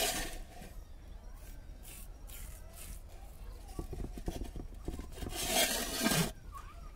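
Thick ground urad dal batter being stirred by hand in a steel vessel: soft scraping and scattered light clicks, with a louder noisy stretch lasting about a second, about five seconds in.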